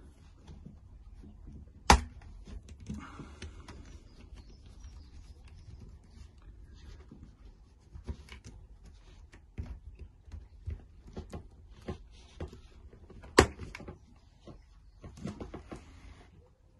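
Plastic RC car parts being handled on a workbench: scattered light clicks and taps, with two loud sharp snaps, one about two seconds in and one about thirteen seconds in.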